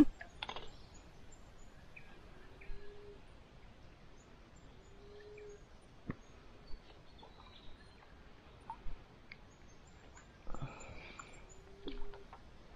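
Quiet open-air ambience with a low, short hooting note called three times, a few seconds apart, and a few small clicks.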